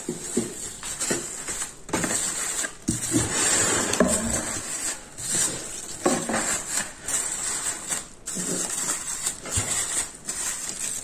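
Glass jars wrapped in cellophane bags being set down in a cardboard box on a foam sheet. The plastic crinkles and rustles, with light knocks as the jars touch down and bump one another.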